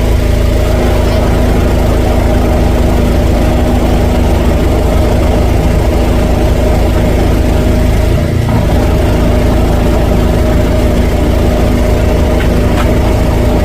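Drain jetter's engine running steadily at a constant speed, with a brief dip about eight seconds in.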